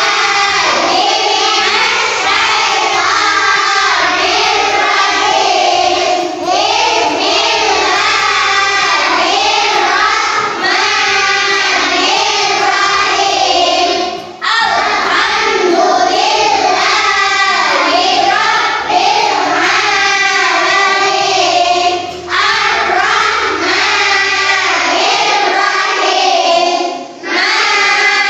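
A group of children singing together, sung in phrases with short breaks between them.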